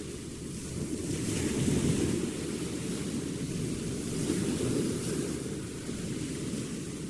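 Sea waves breaking on a beach: a steady rush of surf that swells twice and ebbs between breakers.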